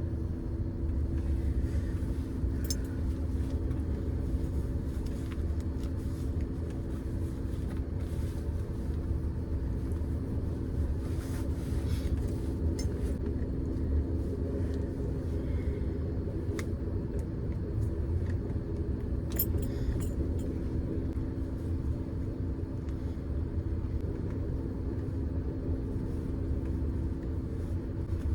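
Steady low rumble and hum of an Amtrak passenger train under way, heard from inside a sleeping compartment, with a few brief clicks or rattles.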